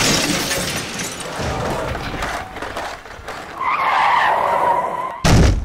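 Car-crash sound effect: a car bursts through a glass window with shattering and clattering debris, then skids, with a tyre squeal from about halfway that breaks off, and a heavy thud near the end.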